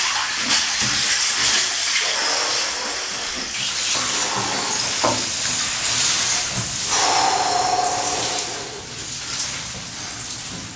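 Ice water sloshing in a bathtub as a person shifts and settles in it.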